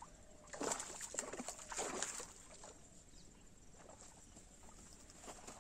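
Brief rustling and scuffing handling sounds in the first two seconds or so, as the angler works with his fishing tackle, then quiet outdoor ambience.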